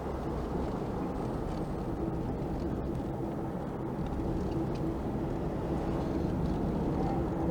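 Steady road and engine noise inside a moving car's cabin, a low even rumble with a faint steady hum.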